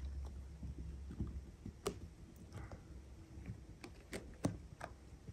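Phone handling noise: soft scattered clicks and taps, with a low rumble for about the first second and a half.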